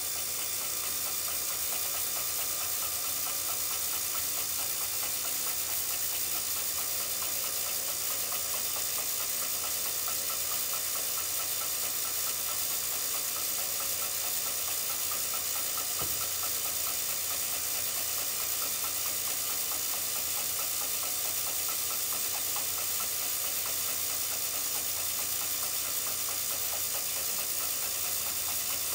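W & J Barnes camelback drill press running steadily on its retrofitted electric motor and belt drive, with a steady high hiss and hum. A single faint knock about halfway through.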